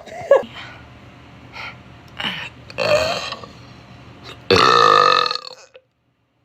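A woman burping: a few short burps, then one long, loud burp about four and a half seconds in that lasts about a second and drops in pitch.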